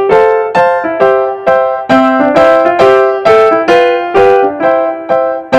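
Background piano music: a simple melody of evenly spaced notes, about two a second, each fading after it is struck.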